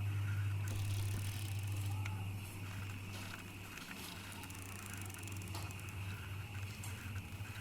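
Bicycle being ridden: a steady low hum from the rolling bike with light rattles and clicks, easing off somewhat about two and a half seconds in. A steady high-pitched tone runs underneath.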